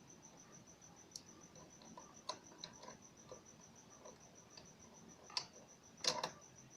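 Small metal clicks and taps as a sewing machine bobbin case is handled and pushed into the bobbin driver. Near the end comes a sharper double click as the bobbin case latches in place. A faint high-pitched pulsing tone ticks steadily in the background.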